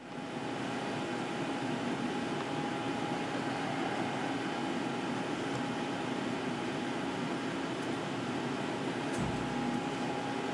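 Hurco VM1 CNC vertical machining center running with a steady mechanical hum and a faint steady tone, with a short low bump about nine seconds in.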